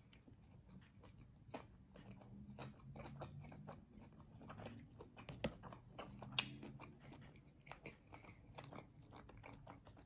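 Close-up chewing and biting of food, with many small crunches and mouth clicks; two sharper crunches stand out about five and a half and six and a half seconds in.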